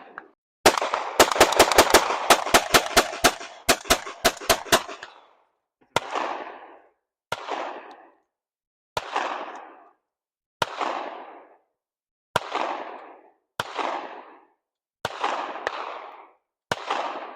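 Gunfire: a fast string of about a dozen gunshots over roughly four seconds, then single shots spaced about a second and a half apart. Each shot trails off in a long echo.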